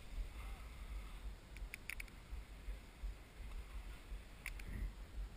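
Skis sliding over slushy spring snow, faint, with an unsteady low rumble on the microphone. A few sharp clicks come about two seconds in, and another near the end.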